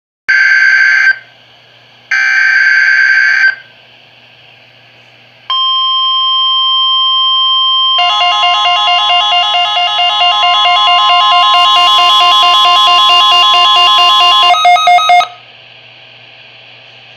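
Weather radio sounding an Emergency Alert System weekly test: two short, harsh digital header bursts, then the steady NOAA Weather Radio alert tone starting about five seconds in. About eight seconds in, a faster pulsing multi-tone alarm is layered over it. Both stutter and cut off about fifteen seconds in, leaving radio static hiss.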